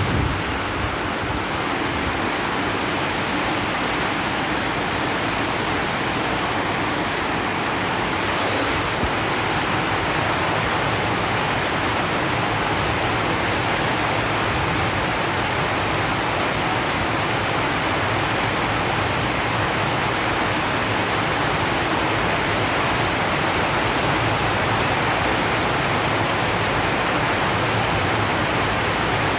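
Steady heavy rain drumming on a zinc sheet roof, a dense, even hiss with no gaps or single drops standing out.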